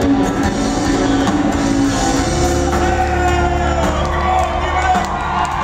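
A live band playing amplified rock, with electric guitars over a heavy bass, heard through the venue's PA from within the audience. A deep sustained bass note comes in about two seconds in.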